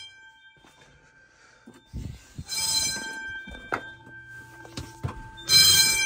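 A fire alarm demo system's sounder in alarm, giving short blasts about three seconds apart, over a faint steady tone.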